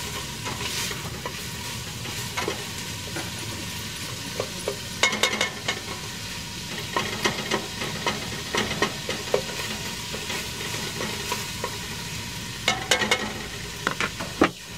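Chopped onions and red bell pepper sizzling as they sauté on high heat in a stainless steel pot, with a spoon clinking and scraping against the pot in bursts of stirring.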